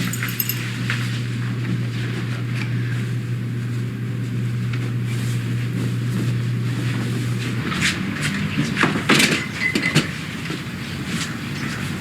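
Car running noise: a steady low hum that cuts off about seven and a half seconds in, followed by a few clunks and knocks.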